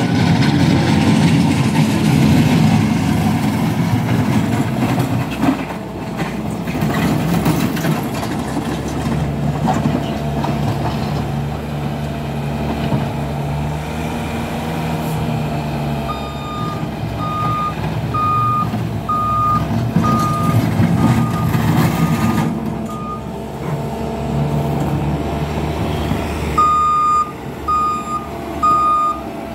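Bobcat S550 skid steer's diesel engine running steadily while working. Just past halfway its reversing alarm starts beeping at an even pace, a little over one beep a second, stops for a few seconds, then starts again near the end.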